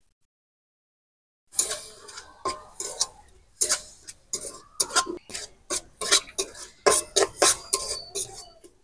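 Long metal spatula scraping and clinking against a metal wok, stirring grated coconut and syrup into a coconut filling. The strokes come irregularly, about two a second, after a second and a half of silence.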